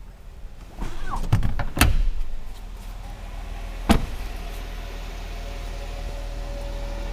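Rear door of a Jeep Wrangler Unlimited: a run of clicks and knocks as it is opened and climbed through, then one sharp slam as it is shut about four seconds in.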